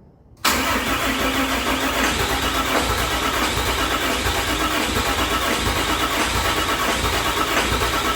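6.7 Cummins diesel turning over on its starter, cutting in abruptly about half a second in and cranking steadily without catching: a no-start.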